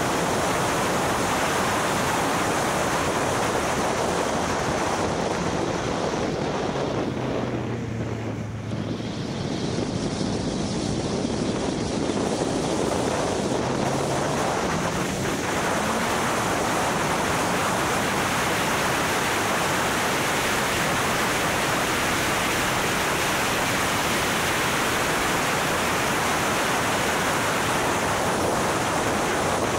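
Heavy wind noise on the microphone: a steady rushing hiss that masks nearly everything. A faint engine note shows through it briefly, rising in pitch about 13 to 16 seconds in.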